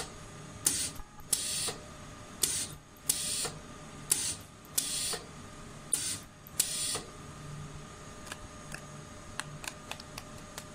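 Ultrasonic mask earloop welding machine firing its horn in short hisses, about eight welds in quick pairs, each pair sealing an earloop end to the mask. After about seven seconds the welds stop and only a few light clicks of handling remain, over a faint steady tone.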